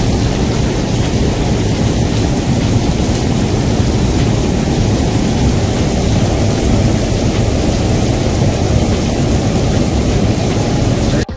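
Heavy rain pouring down with a rushing flash flood of muddy water, a steady loud noise that cuts off abruptly near the end.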